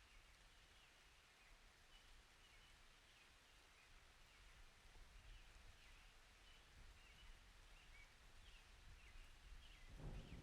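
Very quiet natural ambience with faint, short bird chirps repeating every second or so over a low rumble. Near the end a thunder rumble starts to swell.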